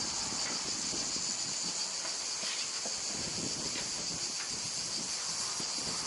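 Steady high-pitched chorus of cicadas, with a few faint scrapes as a yacht's propeller shaft is slid out of its stern tube.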